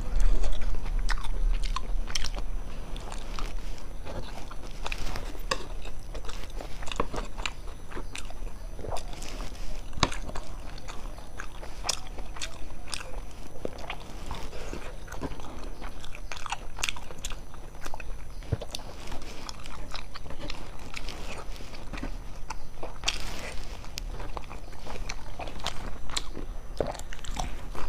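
Close-miked eating: a person chewing and biting food, with many short wet mouth clicks and crunches coming irregularly.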